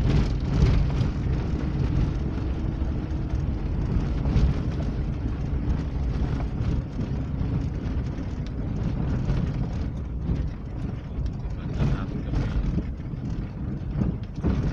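A vehicle driving over a rough gravel road, heard from inside the cab: steady engine and tyre noise with scattered short knocks and rattles from the bumps.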